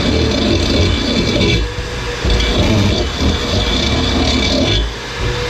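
Electric drill running under load as it bores bolt holes through a metal intercooler bracket, with a steady motor whine that eases off twice, about two seconds in and near the end, before starting up again.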